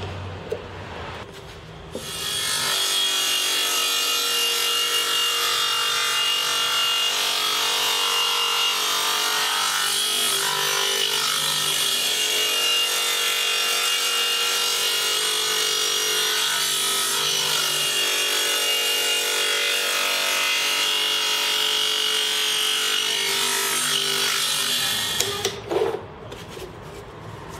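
Table saw starting up about two seconds in, running steadily with a high whine while it cuts a bevelled triangle of wood on a sliding sled, then switched off near the end.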